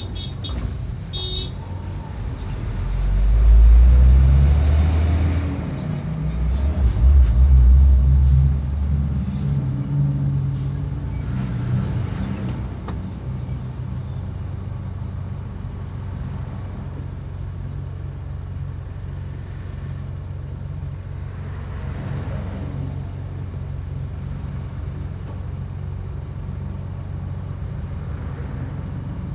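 Road traffic heard from inside a car cabin: a steady low engine and road rumble, with two loud low rumbling swells in the first ten seconds, then an even drone.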